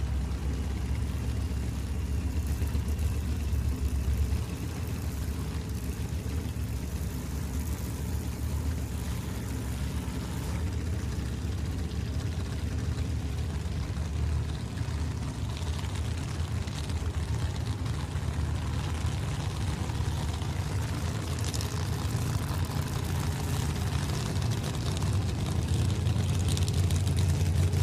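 Drag-racing funny car V8 idling steadily, a low rumble that grows a little louder near the end.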